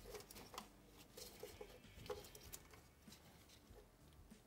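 Near silence, with a few faint, scattered small clicks and taps of hand work.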